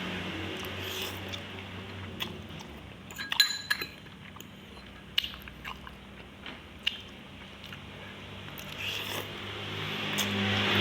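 Close-miked eating of instant noodle soup: chewing, with scattered sharp clicks, a small cluster of them about three and a half seconds in.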